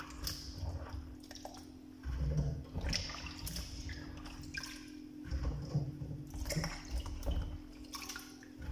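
Water sloshing and splashing in a plastic basin as hands rinse strawberries, coming in uneven surges.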